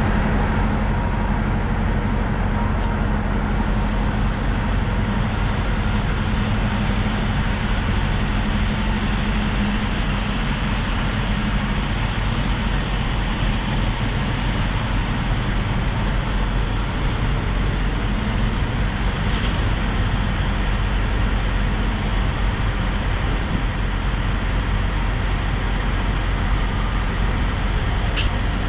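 Diesel truck running steadily: a constant low engine hum under wide, even road-type noise, with a faint click near the end.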